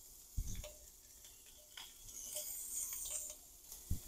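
Smoked sausage sizzling faintly in a cast-iron skillet, with light crackles and two soft thumps, one about half a second in and one near the end.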